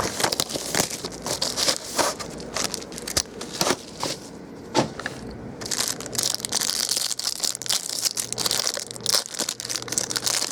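Packaging of a sealed box of trading cards crinkling, tearing and scraping as it is opened by hand, in an irregular run of crackles.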